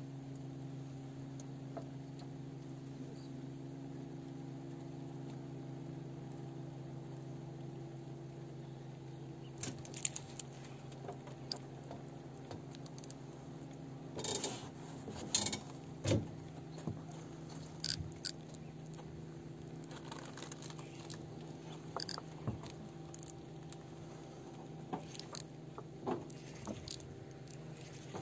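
Baitcasting reel and tackle clicking and rattling in the hands, scattered sharp clicks from about ten seconds in, over a steady low motor hum that shifts pitch partway through.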